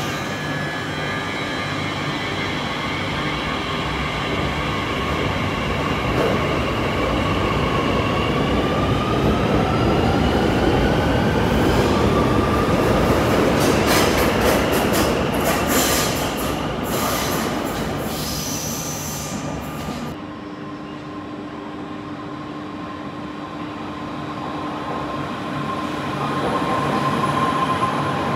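Electric commuter train pulling out of an underground platform: the traction motors' whine rises in pitch as it speeds up, with a run of clacks and squeals from the wheels. About two-thirds of the way through, this gives way to a quieter, steadier tram hum that grows louder near the end.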